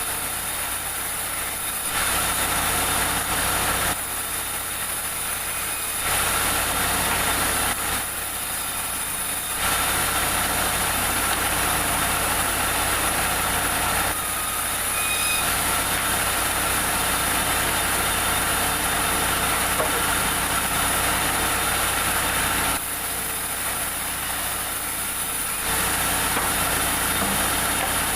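Sawmill machinery running steadily, an engine-like hum with a steady whine, its level stepping up and down every few seconds.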